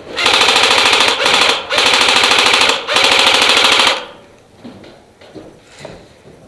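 AK-pattern airsoft rifle firing four long full-auto bursts in quick succession, a rapid rattle of shots that stops about four seconds in.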